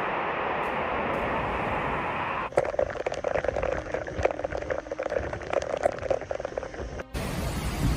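Hurricane storm noise: a steady rush of wind and rain, then, after a sudden change about two and a half seconds in, an uneven stretch of many quick taps and splashes, before another abrupt change near the end.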